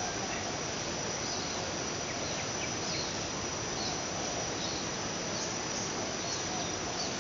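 Steady insect chirring, a continuous high drone with a few short faint chirps scattered through it, over an even background hiss.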